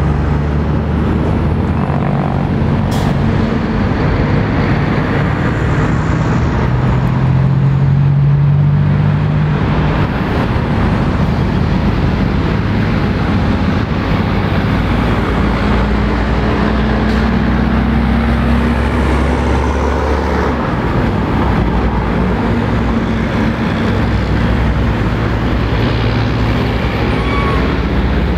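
Heavy road traffic passing close by: diesel lorries, coaches and cars, with the low running of big truck engines rising and fading as each one goes by over a steady rush of tyre noise.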